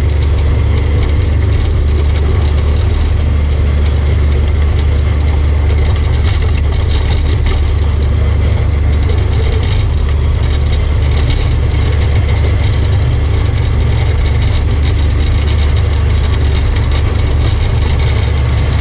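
Kubota B2601 compact tractor's three-cylinder diesel engine running steadily under load while the rear blade pushes snow. Over the engine there is a constant hiss with light crackle from the snow being pushed along.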